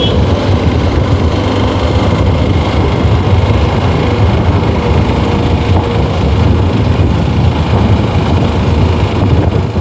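Wind buffeting a chest-mounted camera on a moving motorcycle at highway speed, a loud, steady low rumble, with the bike's engine and tyres running underneath.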